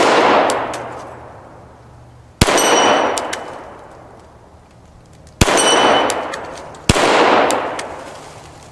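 Three .45 ACP pistol shots from a Glock 41, each followed by a long, fading echo, the last two about a second and a half apart. Small steel animal targets ring as they are hit and knocked down.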